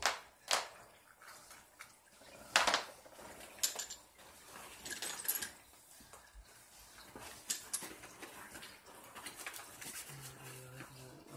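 Metal hand tools clinking and clanking against each other as a tool bag is rummaged through for a wrench: an irregular series of sharp metallic clicks and rattles.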